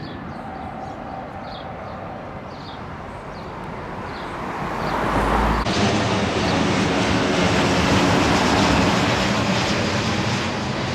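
Loud rumble of a passing aircraft, building up about four seconds in and staying loud, over small birds chirping at first.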